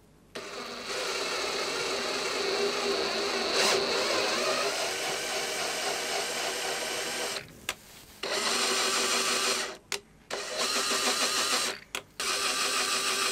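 Cordless drill turning a tapered Helicoil thread tap into a bolt hole in a soft aluminium subframe, its motor running with a steady whine for about seven seconds. It then stops and runs again in three shorter bursts.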